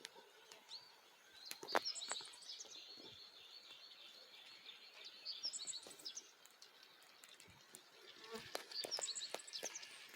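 Songbirds singing: quick runs of high chirps and trills coming in three phrases, about two seconds, five and a half seconds and nine seconds in, over faint outdoor background noise, with a few sharp clicks.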